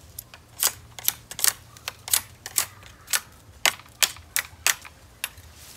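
Sharp clicks of a blade knocking against a green bamboo pole as it is trimmed, about fourteen strokes at an uneven pace of two or three a second.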